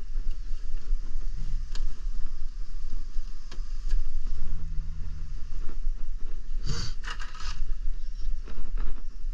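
Low rumble of a hand-held phone microphone being moved about, with scattered clicks and a louder burst of scraping and rustling about seven seconds in.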